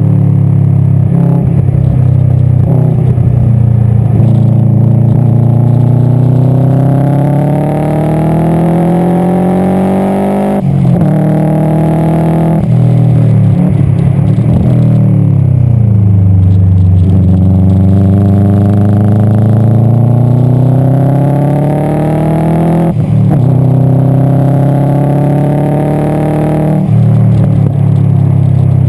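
Subaru Impreza STI GC8's turbocharged flat-four engine pulling hard, its note climbing steadily through long stretches and dropping sharply at each gear change, with a dip and fresh climb in the middle as it eases off and accelerates again. The car is running with an exhaust leak that has cost it power.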